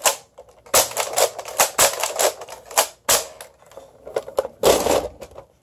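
A quick, irregular run of sharp clicks and clatters close to the microphone, with the loudest cluster near the end.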